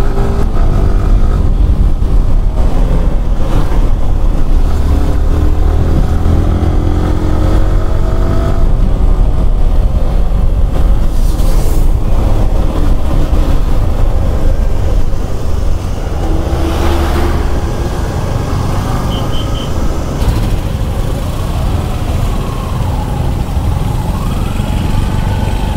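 Yamaha R15 V4 motorcycle's single-cylinder engine running under way, its pitch climbing and dropping as it accelerates and changes gear, with a heavy low rumble throughout. It runs a little quieter after about sixteen seconds in.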